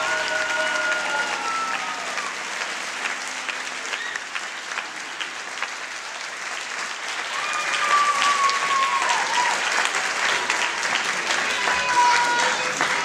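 Audience applauding steadily, a dense patter of many hands clapping, with a few voices calling out over it now and then.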